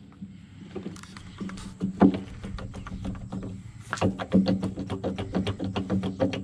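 Metal clicks and scrapes as a replacement excavator bucket tooth is worked onto its adapter, coming several a second from about halfway through, over a steady low hum.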